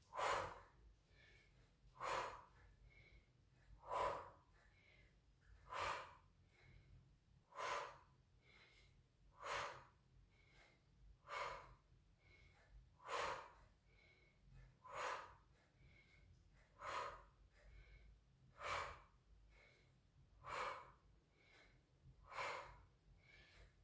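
A woman's faint, rhythmic breathing: short, even breaths about one every two seconds, paced with the repetitions of a dumbbell tricep kickback exercise.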